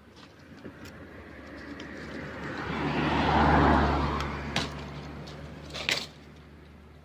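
A motor vehicle passing by: engine and tyre noise swell to a peak about three and a half seconds in, then fade away. A few sharp clicks come near the end.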